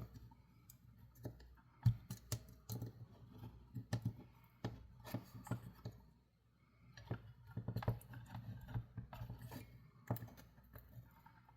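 Irregular small clicks, taps and scrapes of hand tools working the metal battery terminals out of a toy's plastic battery compartment, with a brief lull about halfway through.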